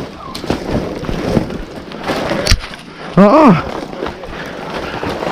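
Brush and briars crackling and rustling as someone pushes through thick cover, with a sharp snap about two and a half seconds in. About three seconds in, a rabbit dog gives one short bay, rising and then falling.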